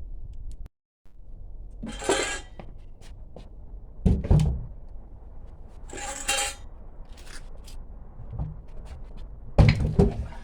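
Diesel heater parts and their housing box being handled: a few heavy thunks, with scraping, rustling noises in between.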